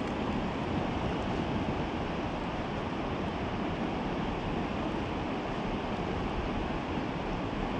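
A steady rushing noise of fast-flowing river water, with wind buffeting the microphone.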